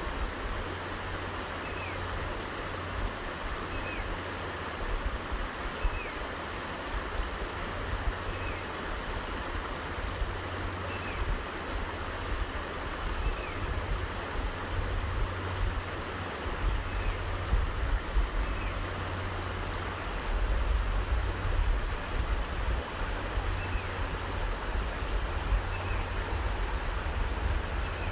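A small headwater stream flowing, a steady rush of water. Under it is a low rumble that gets louder in the second half, and a faint short high note repeats about every two seconds.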